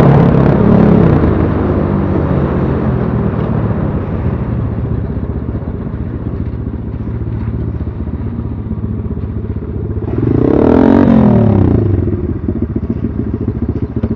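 BSE Z6 enduro motorcycle engine easing off and settling to a steady idle with an even, fast pulse. Between about ten and twelve seconds in, an engine note swells, rises and falls in pitch, then the idle carries on.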